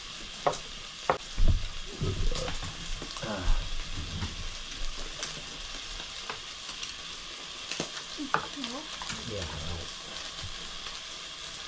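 Meat slices sizzling in a tabletop electric grill pot, a steady hiss, with scattered sharp clicks of chopsticks and dishes.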